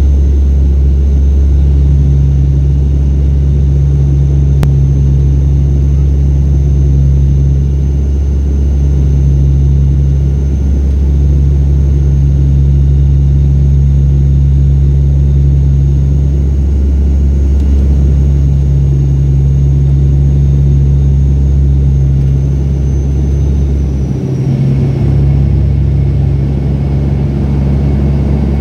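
Cabin drone of an ATR 72-200's Pratt & Whitney PW124B turboprops and propellers in flight: a loud, steady low hum with a throbbing that swells and fades every few seconds. Near the end a high whine slides down in pitch and the tone of the drone changes.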